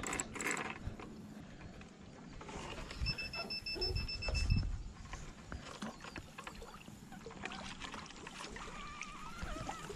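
Wind and water noise on the camera microphone while a fish is played on rod and reel, with a few handling knocks. About three seconds in comes a short run of rapid, high, evenly spaced ticking.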